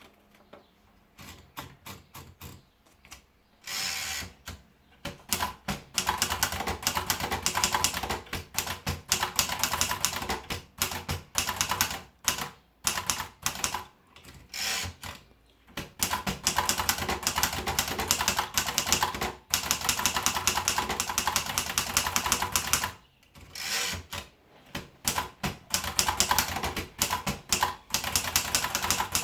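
Empire Aristocrat typewriter being typed on: rapid runs of key strikes clacking against the platen, broken by a few short pauses.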